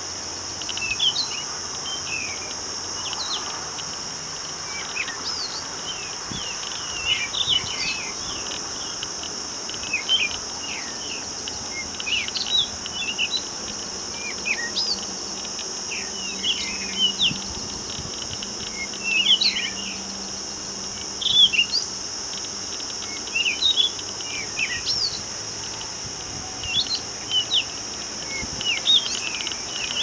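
A steady, high-pitched drone of insects, with many short bird chirps and whistles scattered over it throughout.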